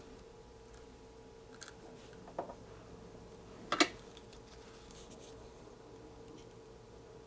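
Small flush cutters snipping component leads on a circuit-board kit: three short sharp snips, the loudest about four seconds in, over a steady faint hum.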